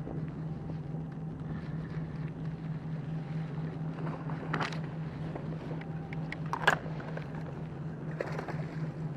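A steady, pulsing low engine hum, with a few sharp clicks, the loudest about two-thirds of the way through.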